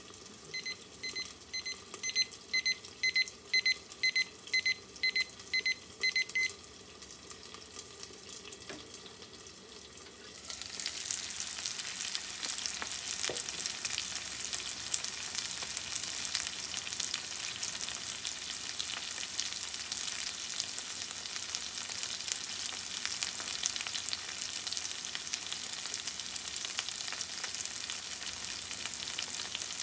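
A timer beeps about two times a second for several seconds over the faint sizzle of frozen gyoza steaming under a lid. About ten seconds in the sizzle gets much louder and crackly as the uncovered dumplings fry in the pan, with the water boiling off and the bottoms crisping.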